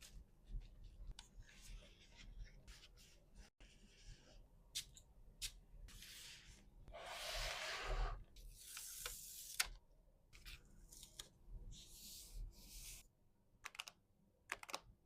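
Packing sounds: paper and plastic packaging being handled, with small clicks and taps and several short swishes, and a longer stretch of rustling or tearing in the middle.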